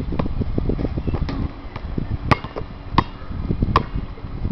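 Basketball bouncing on an outdoor court: three sharp, ringing bounces about three-quarters of a second apart in the second half, over a constant low rumble of smaller thumps.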